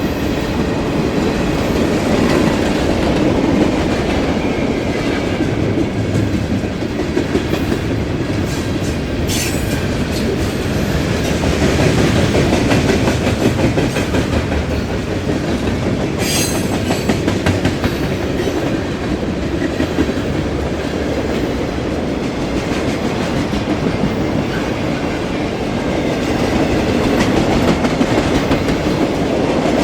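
Freight train cars rolling past, a steady rumble with the rapid clickety-clack of wheels over rail joints and two brief high squeaks from the wheels.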